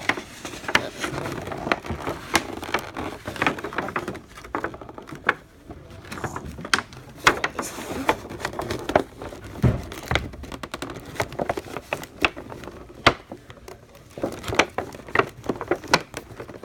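Trading cards and packaging being handled: soft rustling and crinkling with frequent sharp taps and clicks as cards are gathered and laid out.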